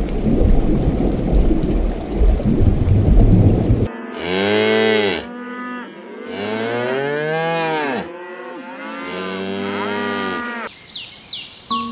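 Steady rush of bubbling water in an aquarium tank, then three long moos from Holstein-Friesian cattle, each rising and falling in pitch, the middle one the longest. A few quick bird chirps come in near the end.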